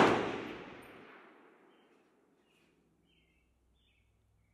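The rolling echo of a shot from a MAS 49/56 semi-automatic rifle in 7.5×54mm French, fired just before, dying away over about the first second. Faint bird chirps follow.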